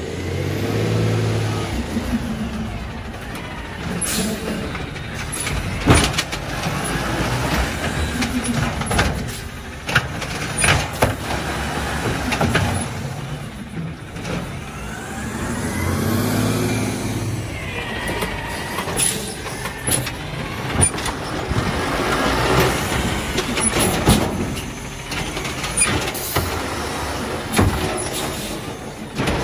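Autocar ACX garbage truck with an Amrep automated side-loader arm collecting curbside carts: the compressed-natural-gas engine revs up and down twice to drive the arm's hydraulics, with air-brake hiss and sharp knocks and clatter as carts are lifted and dumped into the hopper.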